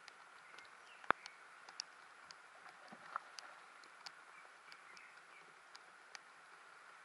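Light rain: scattered raindrops ticking sharply and irregularly, the strongest about a second in, over a faint steady hiss.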